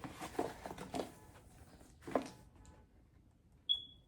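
Olive oil bottles and their packaging being handled: soft rustling and light taps, a single knock about two seconds in, then a short high ringing ping near the end.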